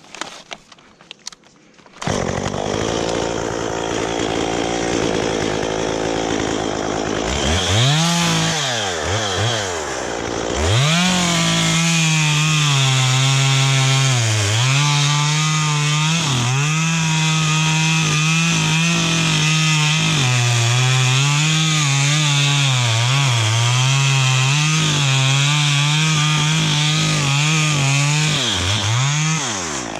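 Chainsaw idling from about two seconds in and revved twice. It is then held at high revs cutting through eucalyptus wood for most of the rest, the pitch dipping repeatedly as the chain bogs under load, before it drops back near the end.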